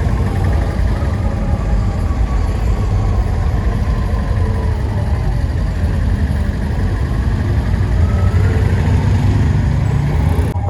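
Vehicle engine running, with a steady low rumble, until it cuts off abruptly just before the end.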